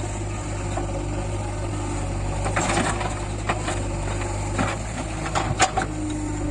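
Backhoe loader at work: its diesel engine runs steadily, with a handful of sharp knocks and clatters from about halfway through, the loudest a little over five seconds in.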